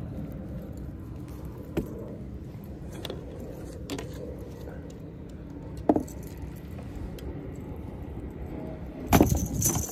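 Scattered clicks and knocks of fishing gear being handled in a kayak over a low steady rumble, with a louder rattling clatter near the end.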